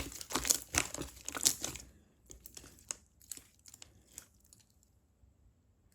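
Clear slime being squeezed and pressed by hand, giving dense sticky crackles and pops for about two seconds, then scattered clicks that thin out and stop.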